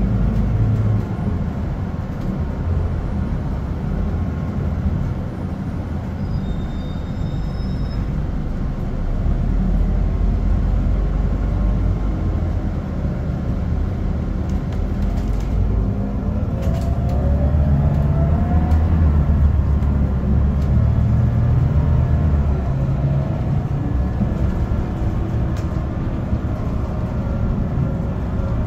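Mercedes-Benz OC500LE bus with its M447hLAG six-cylinder turbocharged CNG engine, heard from inside the cabin while driving: a steady low engine drone with road noise. The pitch rises and the rumble grows about halfway through.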